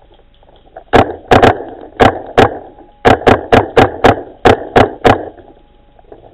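Paintball marker firing about a dozen sharp, loud shots in quick irregular bursts, starting about a second in and stopping about a second before the end.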